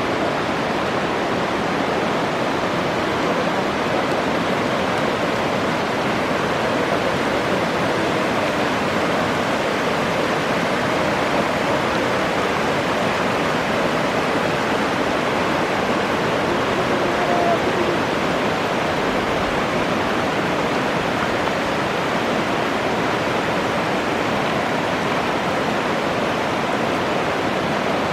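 Fast alpine mountain torrent rushing steadily below its waterfalls, a constant even roar of white water.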